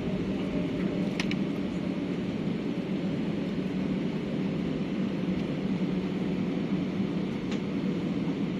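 Steady low rumble of a jet airliner's engines and cabin air heard from inside the cabin while taxiing, with two faint clicks, one about a second in and one near the end.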